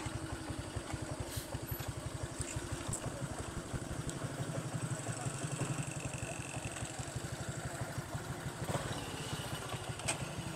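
Small motorcycle engine idling with a steady, rapid, even low pulse.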